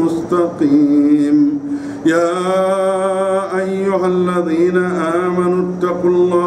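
A man's voice chanting Quran verses in the melodic tajwid style, drawing out long held notes with ornamented turns. There is a brief breath just before two seconds in, then the next phrase begins.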